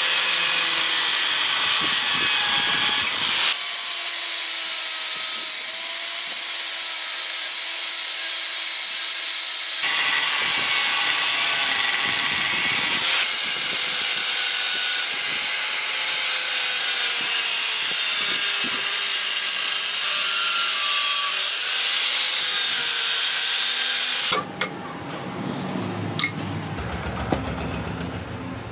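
Electric power tool running under load on steel, a bright hissing grind over a motor whine whose pitch wavers. It stops about 24 seconds in, leaving quieter clicks and knocks.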